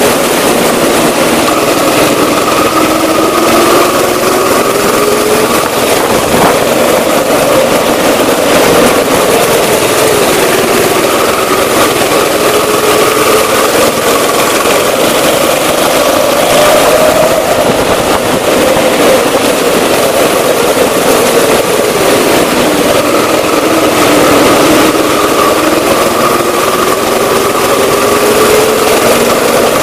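Go-kart heard from onboard, running at speed around the track, loud throughout, its motor note repeatedly dropping and climbing again every few seconds as it slows and accelerates.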